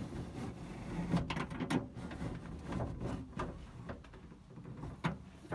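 Hand-cranked window regulator lowering the glass inside a 1956 Ford F100 door, the glass sliding down with its rear rail removed: rough scraping and grinding broken by irregular clicks and knocks.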